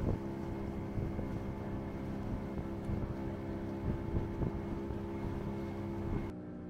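Outboard motor of a pirogue running at a steady speed, a constant even drone with water and wind noise around it. Near the end the hiss drops away suddenly and the motor sounds quieter.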